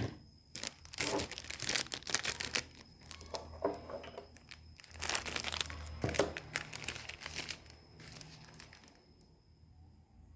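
Plastic packaging crinkling and tearing in several bursts of handling, with a faint low hum underneath through the middle.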